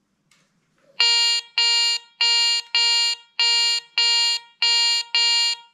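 Garrett Ace 300i metal detector sounding its target tone as a gold emblem is passed over the coil: eight identical, buzzy beeps about 0.6 s apart, starting about a second in.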